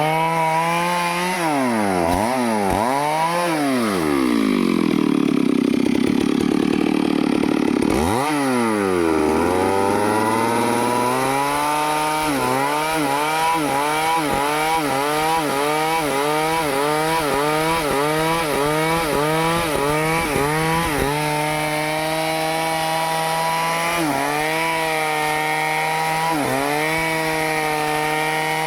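Stihl two-stroke chainsaw revving up and down, then dropping in pitch under load for a few seconds as it cuts into teak wood. It follows with a long run of quick, regular throttle blips, about one and a half a second, then runs steadily with two brief dips near the end.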